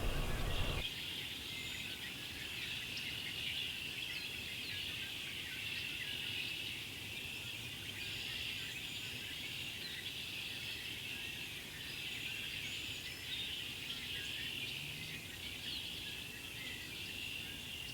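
A large mixed flock of red-winged blackbirds and cedar waxwings calling together: a steady, dense chorus of high chirps and whistles without a break.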